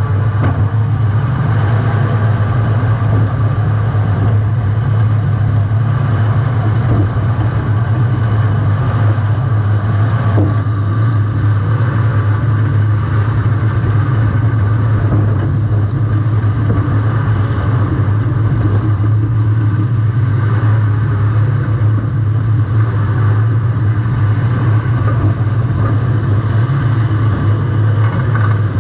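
Welded compact demolition-derby car's engine running loud and steady close to the camera, with little change in pitch.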